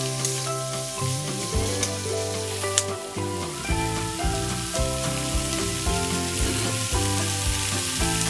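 Hot oil sizzling as diced tofu, chilies, onion and garlic are stir-fried in a wok, with a metal spatula scraping and clicking against the pan. Background music plays throughout.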